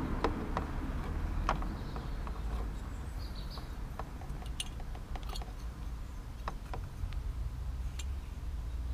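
Irregular small clicks and taps of a hand working the plastic fog-light housing and its clips inside a car's front bumper opening, about a dozen sharp ticks spread unevenly, over a steady low rumble.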